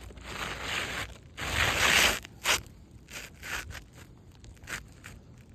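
New asphalt shingle scraping and rustling as it is worked into place on the roof, a few dragging strokes with the longest and loudest about two seconds in, then several shorter scrapes.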